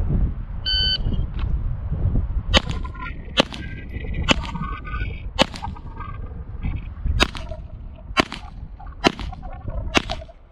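A shot timer beeps briefly, then a Gen 5 Glock 17 9mm pistol fires eight shots, about one a second, with a pause of nearly two seconds after the fourth. Wind rumbles on the microphone throughout.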